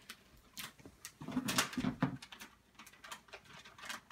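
Gift wrapping paper crinkling and tearing as a present is unwrapped, in quick irregular crackles, loudest about a second and a half in.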